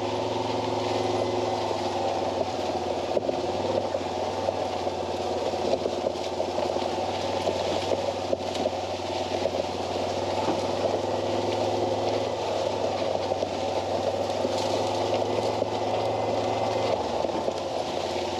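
Gator utility vehicle's engine running steadily while driving, a low hum with a rushing noise of wind or tyres over it; the low hum drops a little near the end.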